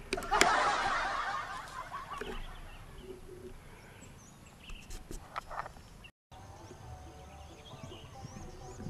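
A flock of birds calling, a dense chatter that starts just after a sharp click and fades away over about two seconds, followed later by faint high chirps.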